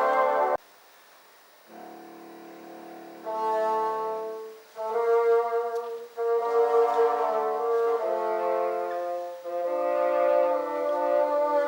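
Bassoon ensemble playing sustained chords. The music breaks off abruptly about half a second in, and after a brief pause a soft chord enters and swells into a loud passage of held chords.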